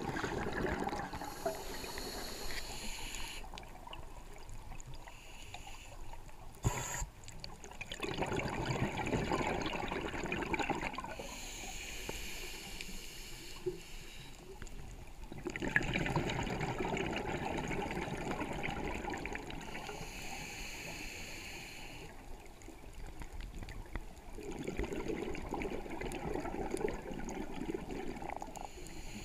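Scuba diver breathing through a regulator, heard underwater: a hissing inhale alternates with a long rush of exhaled bubbles, about four breaths in turn. There is a sharp click about seven seconds in.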